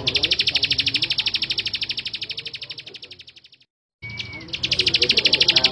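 Male plain prinia (ciblek sawah) singing: a rapid run of high, evenly repeated notes, about a dozen a second. It fades and breaks off about three and a half seconds in, and after a short whistle starts up again near the end.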